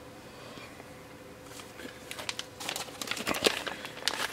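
Sheets of paper rustling and crinkling as they are picked up and handled, starting about a second and a half in and growing louder.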